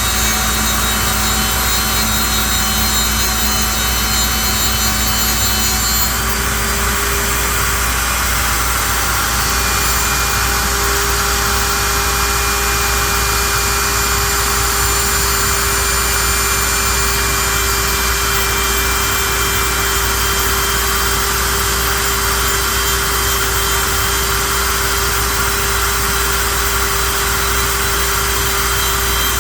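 CNC lathe turning a square curly maple blank down to a round butt sleeve: a steady cutting noise of the tool in the wood over the whine of the machine's motors, the whine changing slightly about six seconds in.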